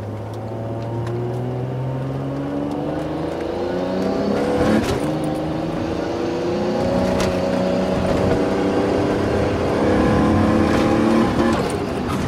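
Tuned Toyota 2JZ-GTE inline-six in a Rolls-Royce Phantom, put at 700 hp or more, accelerating. It is heard from the cabin, its note climbing and dropping back at gear changes about four and a half seconds in and again near seven seconds, then climbing again.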